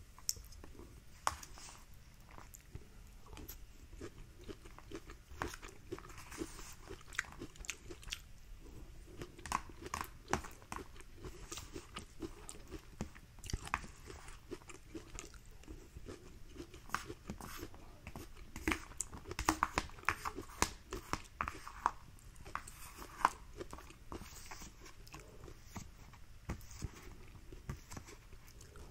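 A person chewing and eating sweet corn, with many short wet mouth clicks. A wooden spoon taps and scrapes on a plastic plate. The sharp clicks come thickest a little past the middle.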